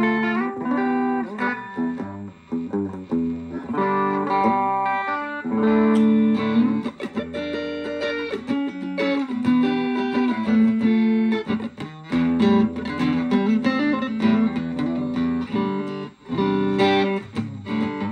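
Electric guitar played through a Vox VR30 Reverb amplifier on its clean channel: picked single notes and chords with short pauses between phrases. The sound is dry, as the amp's reverb is broken.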